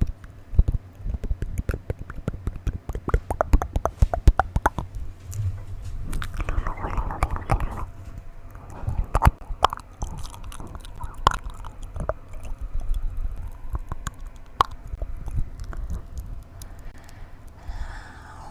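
Close-miked wet mouth sounds: rapid clicks and smacks of the tongue and lips, dense in the first few seconds, with a longer breathy, hissing sound around six to eight seconds in and sparser clicks after.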